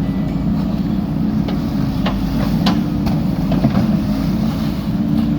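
JCB 3DX backhoe loader's diesel engine running steadily under work, with a few sharp metallic clanks about halfway through.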